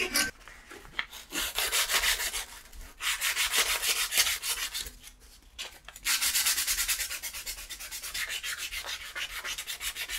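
Aluminium pieces held in a bench vise being hand-sanded along their edges with abrasive paper: quick back-and-forth rubbing strokes in bouts, with short pauses about three and five seconds in.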